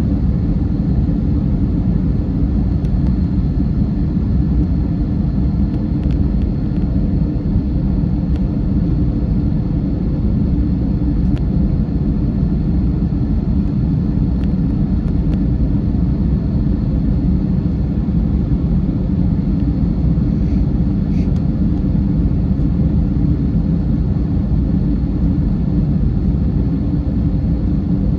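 Steady low rumble of jet engines and rushing air inside an Airbus A321's passenger cabin, with no change in level and a few faint clicks.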